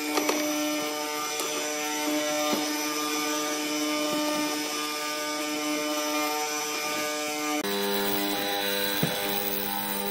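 Hollow-chisel mortiser running as its square chisel and auger plunge into hardwood to cut mortises: a steady motor whine with a few sharp knocks. The pitch drops abruptly about three-quarters of the way through.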